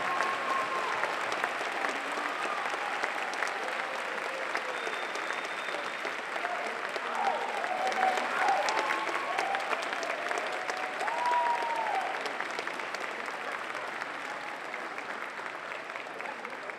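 Large crowd applauding, with scattered whoops and shouts rising above the clapping; the applause gradually dies down over the last few seconds.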